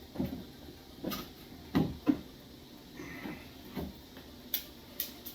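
Irregular small knocks and clicks, about eight in five seconds, from small nails being worked loose from a bookshelf and handled.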